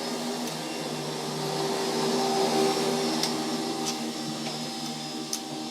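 A vacuum cleaner running steadily in the background, a constant hum and hiss, with a few light clicks near the end from small parts being handled.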